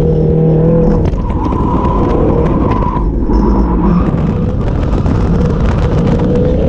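Drift car's engine running hard as the rear tires skid through a slide, the engine note shifting about a second in with a brief lull near the middle.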